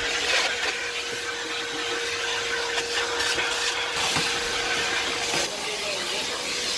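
Kärcher NT 70/2 twin-motor vacuum cleaner running, a steady rush of air with a steady whine that drops away about five and a half seconds in.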